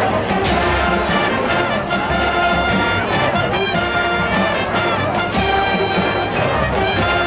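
A combined marching band and middle-school band playing, with the brass leading in held chords that change every second or so over a low bass.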